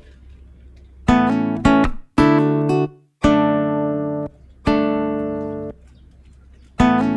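Background music: acoustic guitar playing plucked chords, each left to ring out and fade, with short pauses between them.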